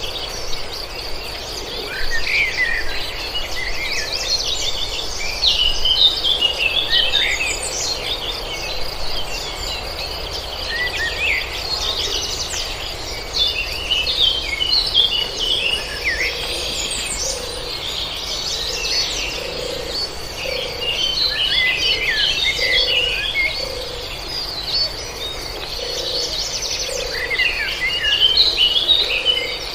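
Several birds chirping and singing in quick, overlapping phrases over a steady high-pitched insect trill. In the second half a low note repeats about once a second beneath them.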